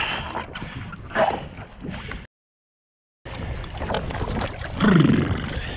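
Water splashing and gurgling around a sea kayak as it goes over in a capsize. The sound cuts out completely for about a second midway. Near the end a brief loud sound falls in pitch.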